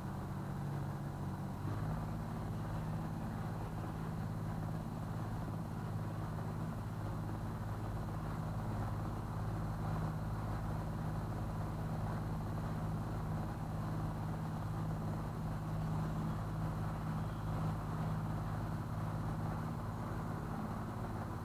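A cabin cruiser's engine running steadily as the boat cruises slowly along a canal, with a faint rush of water beneath it. The engine's note shifts slightly about two seconds in, then holds steady.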